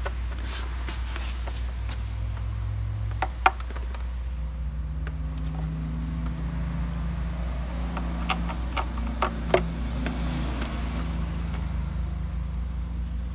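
Sharp metallic clicks and knocks of hand tools and a bolt being worked in a car's engine bay, loudest twice, about three and a half and nine and a half seconds in, over a steady low hum.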